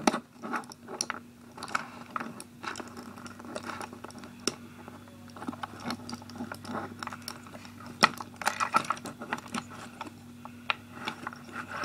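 Plastic clicks and small knocks of a Transformers Deluxe Jolt action figure being handled, its leg and heel pieces pulled out and folded into place, with the sharpest click about eight seconds in.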